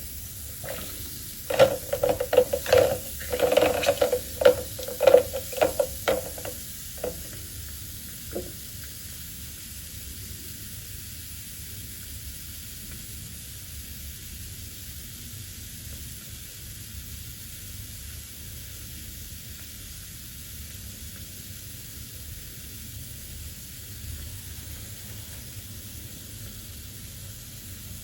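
Seashells knocking and clinking against one another and their container for several seconds, a quick run of sharp knocks with a short ring. After that, a steady soft fizzing hiss from the shells in diluted oxalic acid solution.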